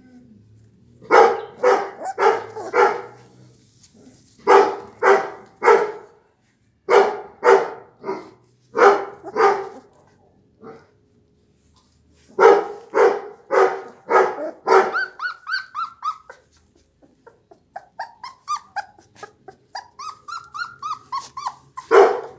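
Dog barking in quick runs of three to five barks with short pauses between, followed in the last few seconds by a string of short, high whimpering cries.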